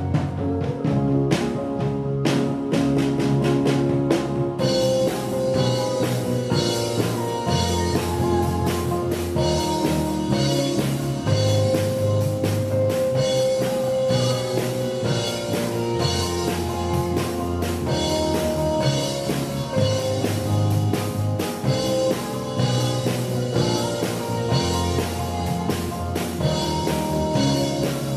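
Live rock band playing: a Pearl drum kit, an electric bass guitar and a Kurzweil SP6 keyboard, with long held notes over a moving bass line. The cymbals come in about four to five seconds in and keep up a busy beat.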